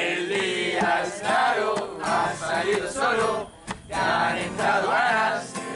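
A group of young voices singing together along to a strummed acoustic guitar, in phrases with a short break a little past the middle.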